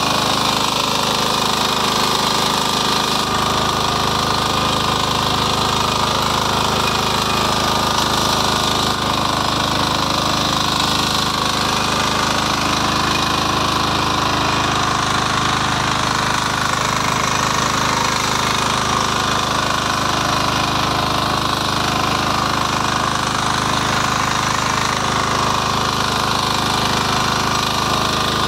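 Power weeder's small engine running steadily under load as its tines work the soil to form beds.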